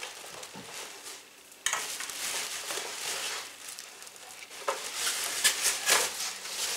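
Plastic packaging crinkling and rustling as a new stand mixer and its glass bowl are unwrapped, starting suddenly about two seconds in. A few light knocks from handling the mixer come near the end.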